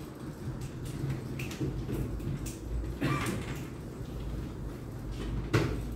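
Quiet room tone with a steady low hum, broken by a few short, soft knocks, the clearest about three seconds in and just before the end.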